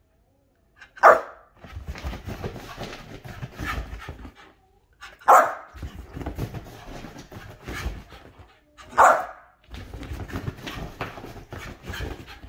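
Corgi barking three times, about four seconds apart, excited during a bout of zoomies. Between the barks come stretches of paws scrabbling and thudding on a leather sofa as she runs.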